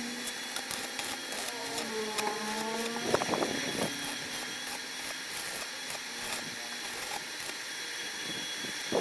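Washing-machine motor of a home-made coconut grater running with a steady hum, its pitch sagging and recovering about two to three seconds in, with a short clatter just after.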